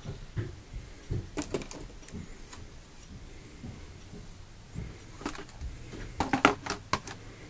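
Handling noise: a few light clicks about a second in, then a quick cluster of knocks and crinkles near the end as an empty plastic PET bottle is grabbed and handled, over a faint steady low hum.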